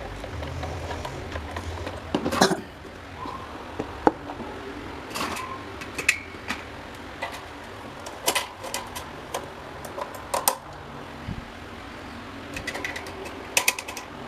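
Irregular clicks and light knocks of small hard parts being handled and fitted, loudest about two seconds in, over a low hum that fades after the first couple of seconds.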